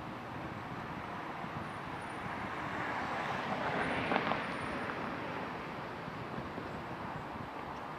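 A car passing by on the street, its tyre and engine noise swelling to a peak about four seconds in and then fading away, over a steady hum of distant traffic.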